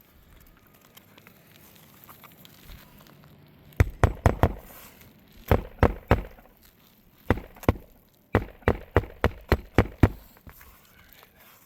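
Hammer striking roofing nails on an asphalt shingle roof: a few sharp blows, then pairs, then a quick run of about eight blows.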